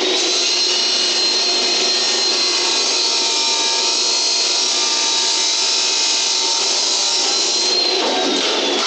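Power cutting tool running under load through a piece cut to length, a loud steady whine that sags in pitch about eight seconds in.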